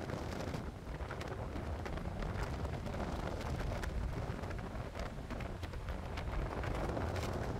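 Rain falling during a thunderstorm, with many scattered drops ticking close by over a low, steady rumble.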